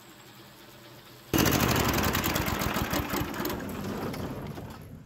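Small gasoline engine of a Harbor Freight bandsaw sawmill: a faint hum at first, then about a second in it comes in abruptly and loudly, running hard with a fast pulsing beat, and dies down over the last few seconds.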